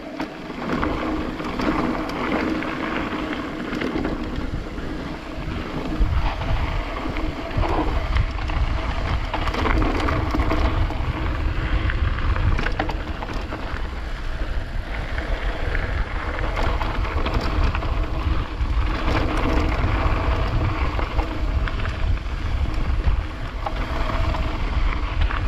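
Mountain bike riding down a rough, rocky trail: tyres rolling over stones and gravel, the bike rattling, and wind on the camera microphone. The low wind rumble gets heavier from about six seconds in.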